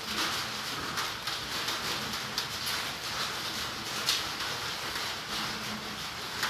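Steady outdoor hiss with scattered short sharp clicks, the loudest about four seconds in.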